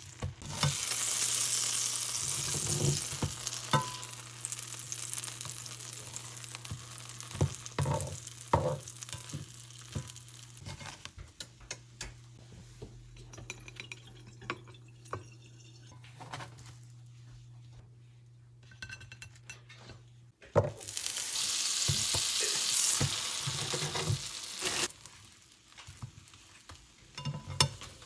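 Bread frying in melted butter in a pan, sizzling loudly as the slices go in, then dying down, with a spatula tapping and scraping on the pan. The sizzle rises again about twenty seconds in, and a low steady hum sits under the first part.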